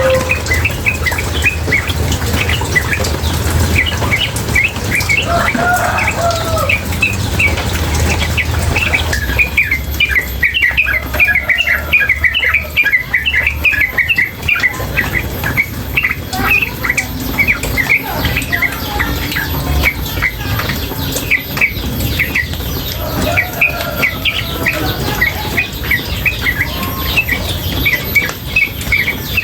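Female yellow-vented bulbul giving a fast, unbroken string of short chirps, with a few lower warbled notes mixed in. Running water can be heard underneath for the first half, then fades.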